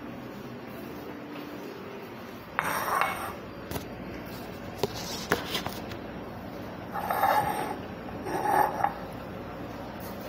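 Kitchen dishes and utensils clinking and scraping in a few short bursts, with a few sharp clicks in between.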